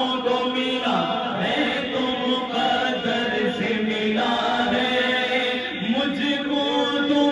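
A man's voice chanting devotional verse into a microphone, with long, ornamented held notes.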